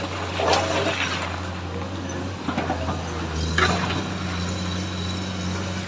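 Komatsu excavator's diesel engine running steadily, with a few knocks from the machine at work, the loudest just after the start and about three and a half seconds in.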